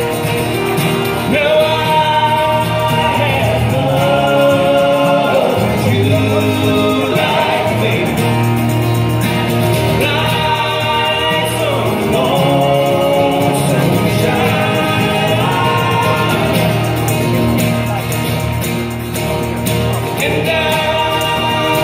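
Several men singing in close harmony with acoustic guitars, the voices stacked in chords.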